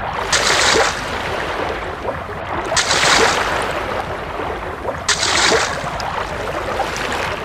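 Water sound effect: waves washing and splashing in a steady rush that swells three times, about every two and a half seconds.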